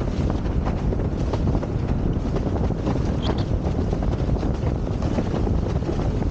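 Wind buffeting the microphone of a windsurfer planing at speed, over the rushing and hissing of water under an iSonic slalom board. Frequent irregular sharp slaps and spray hits as the board skips across the chop.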